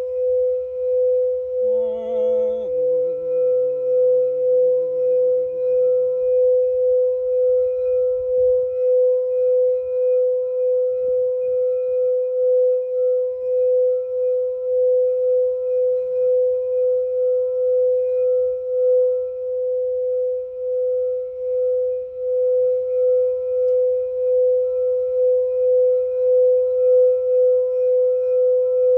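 Singing bowl ringing one sustained tone with a regular pulsing waver. For the first few seconds a lower, warbling pitched tone sounds along with it, then fades out.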